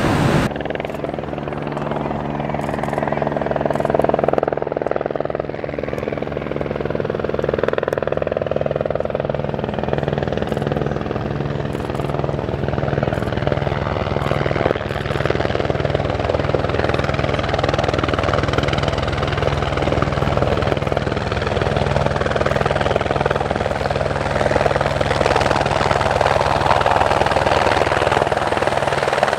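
Aircraft engines running steadily: a continuous loud drone with a low hum that pulses slowly and regularly.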